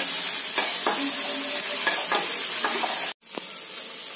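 Chopped tomato, onion, garlic and ginger sizzling in hot oil in a stainless-steel pan while being sautéed, with a spoon stirring and scraping against the pan several times. The sound cuts out for an instant about three seconds in and comes back quieter.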